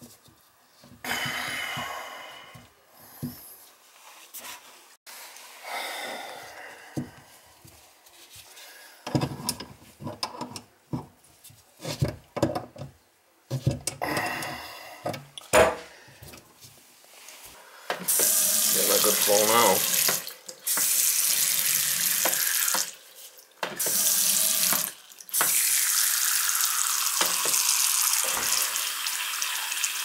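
Scattered knocks, clicks and short splashes from work on a bathroom sink's supply shutoff valve. About eighteen seconds in, a steady rush of a bathroom faucet running into the basin starts and continues to the end, broken by three short breaks. The faucet is being run to test the flow after debris was cleared from the shutoff.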